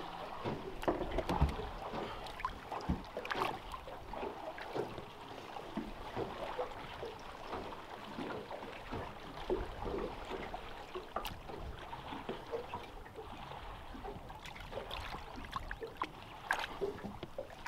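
Water lapping and slapping against the side of a small boat's hull, with scattered light knocks and small splashes.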